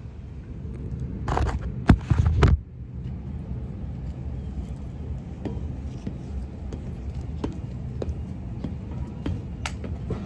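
Loud rustling and a sharp knock as a phone camera is handled and set down, then a steady low rumble in the background with occasional light clanks of boots on a steel wall ladder.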